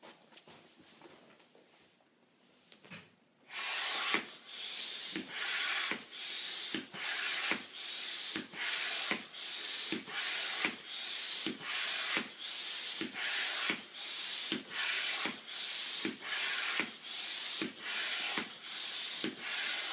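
Hand floor pump inflating a balloon: a rhythmic hiss of air with each pump stroke, a little more than one stroke a second, starting about three and a half seconds in.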